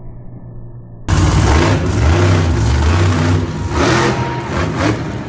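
Monster truck engines running and revving hard, cutting in abruptly about a second in, loud, the pitch surging up and down with each rev. Before that there is only a faint, muffled rumble.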